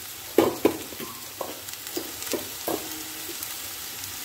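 Oil sizzling steadily in a nonstick pan of frying onions, green chillies and freshly added watermelon rind cubes, with a run of short clinks and knocks from utensils against the pan or plate in the first three seconds.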